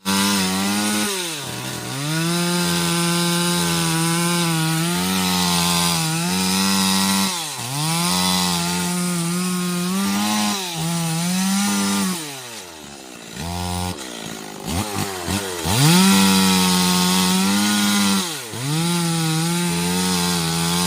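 Stihl MS 381 two-stroke chainsaw cutting wood at high revs. The engine repeatedly drops back toward idle and revs up again, with a few quick throttle blips a little past the middle.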